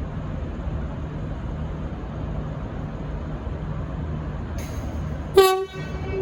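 Steady diesel rumble of a V/Line VLocity railcar, then about five seconds in its horn sounds: a short loud blast that settles into a quieter held tone.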